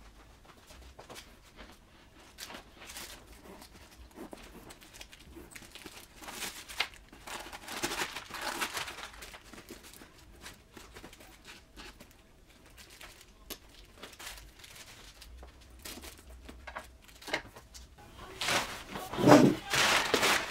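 Crinkling and rustling of plastic wrap and packing paper as a new handbag is unpacked and its stuffing pulled out. Near the end comes a louder spell of rustling as large sheets of paper are shaken out and spread.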